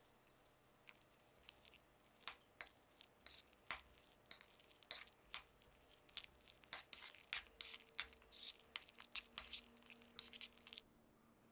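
Metal spoon stirring and mashing a wet mixture of crumbled tofu, raw egg and grated cheese in a glass bowl. A quick, irregular run of short scrapes and clicks that stops shortly before the end.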